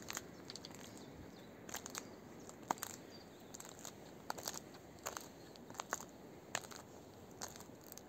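Footsteps crunching on a fallen tree trunk's bark and on dry twigs, about one step a second, each a short crackle over a faint outdoor background.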